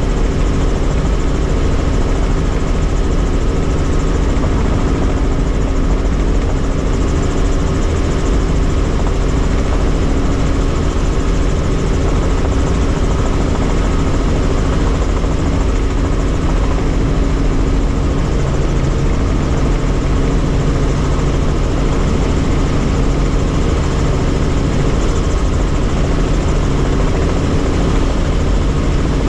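Helicopter in steady flight: a loud, unchanging drone of rotor and engine with a few steady humming tones over a heavy low rumble.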